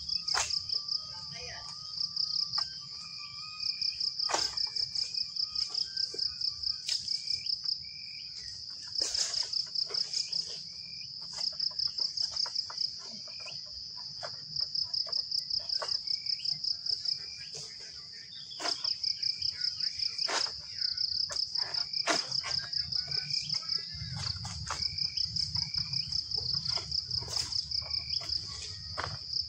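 Insects chirping: a high, rapid pulsing trill in runs of a few seconds broken by short pauses. Scattered sharp clicks are heard through it.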